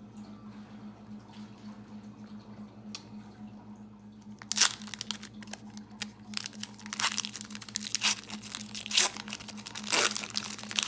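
Trading card pack wrapper being torn open and crinkled by hand: a run of sharp, irregular crackles starting about four and a half seconds in, after a quiet stretch with only a steady low hum.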